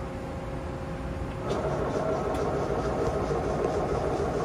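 Haas SL10 CNC lathe spindle starting up about a second and a half in, with a click or two, then running steadily. Before it starts, the machine's steady hum.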